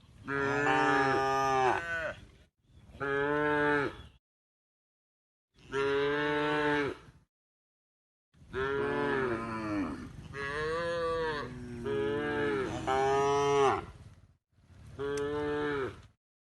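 Cattle mooing: a run of loud, drawn-out moos with bending pitch, several calls in a row and a shorter one near the end, separated by sudden dead-silent gaps.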